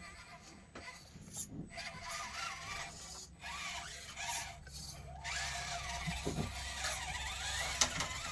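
Axial SCX24 micro crawler's small electric motor and gears whining as it crawls, the pitch rising and falling with the throttle.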